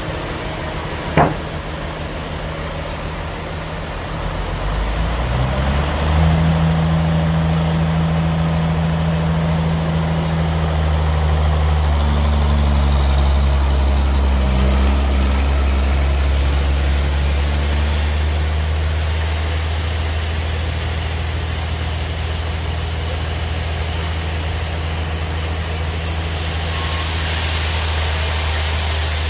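Sawmill bandsaw machinery running: a low, steady engine-like drone that builds up about five seconds in. A single sharp knock comes about a second in, and a hiss joins near the end.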